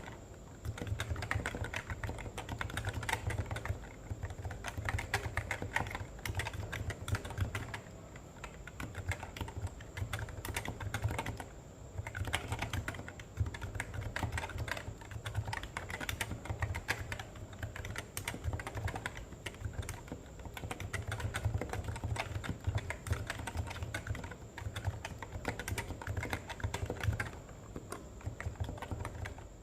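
Fast typing on a Realforce R2 RGB keyboard's Topre switches under Cherry-profile PBT keycaps: a dense stream of keystrokes with a deep thud under each, broken by a few brief pauses.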